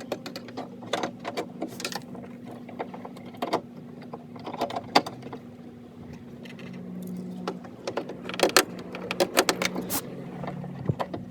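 Irregular metallic clinks and clicks of a 10 mm socket tool and screws being worked inside a car door to bolt the exterior door handle back in, over a steady low hum.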